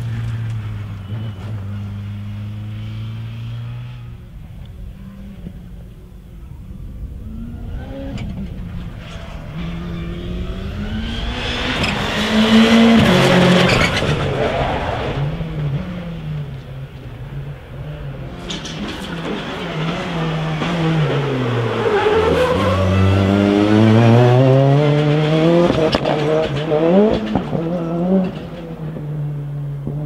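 Turbocharged 600 hp rallycross supercars accelerating and passing at speed. Their engine notes rise and fall through the gears, loudest on two close passes, with a few sharp cracks between.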